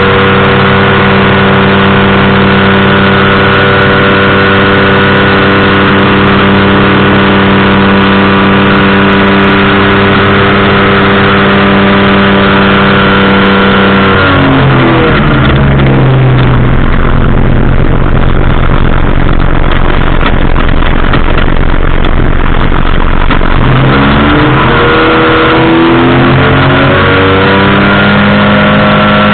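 Powered parachute engine and propeller running loud and steady. About halfway through the throttle comes back and the pitch drops, then it throttles up again and the pitch climbs back to its earlier level near the end.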